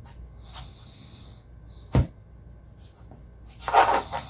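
Kitchen knife cutting a raw potato in half on a plastic cutting board: a sharp knock of the blade on the board about halfway through, then a louder, longer crunching scrape near the end.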